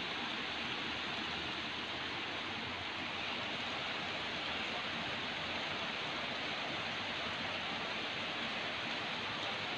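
Steady rain falling: an even hiss with no single drops or drips standing out.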